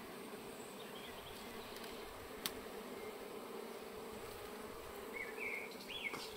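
A colony of honeybees buzzing steadily around open comb, a low continuous hum. There is one sharp click about two and a half seconds in, and a few short high chirps near the end.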